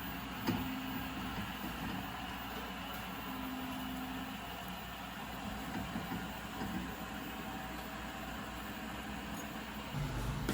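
Steady low rumbling background noise with no clear pitch, and a single faint tap about half a second in.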